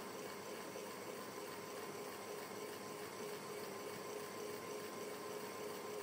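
Steady background hiss with a faint, even hum: room tone from the recording, with no distinct event.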